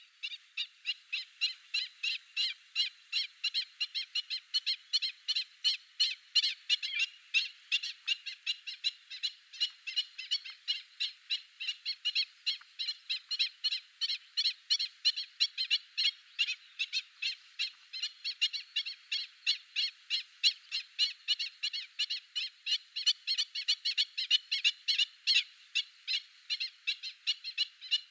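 Black-winged stilts calling: a continuous, rapid series of short notes, about three or four a second.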